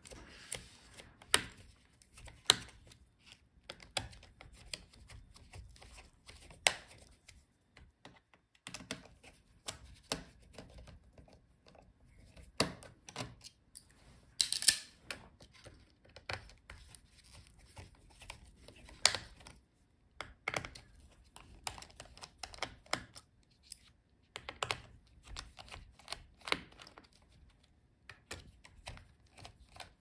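Precision screwdriver turning out the screws of a laptop's heatsink and fan assembly: scattered light clicks and ticks of the bit and metal screws at irregular moments, a few sharper than the rest.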